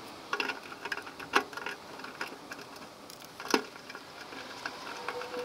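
Scattered light clicks and taps of a hand tool and metal fittings being worked under the car as the fuel line is taken off the gas tank, with a few sharper clicks among them.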